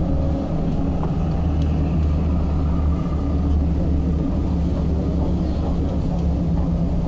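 Tram running along its tracks: a steady low rumble and hum of its motors and wheels on the rails, heard from inside the tram.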